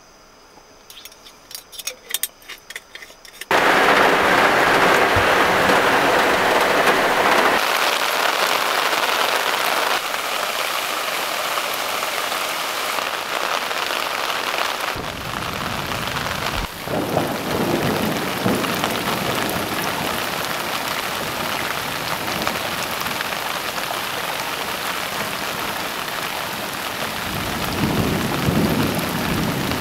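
Heavy rain pouring down steadily. It starts suddenly about three and a half seconds in, after a quiet stretch with a few faint clicks.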